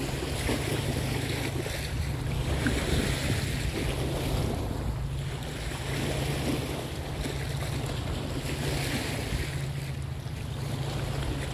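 Wind buffeting the microphone: a steady low rumble under a rushing hiss, with no distinct events.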